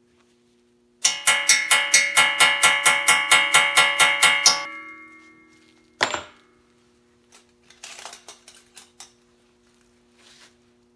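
Hammer driving a steel chasing tool against a bronze casting, about five quick ringing strikes a second for some three and a half seconds, then one louder knock and a few lighter, scattered taps. It is the chasing of a welded seam, working the weld down so the joint blends into the surrounding bronze.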